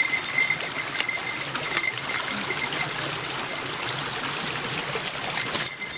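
A fast-flowing stream rushing steadily over rocks, busy water at a stepping-stone crossing, with a few light clicks.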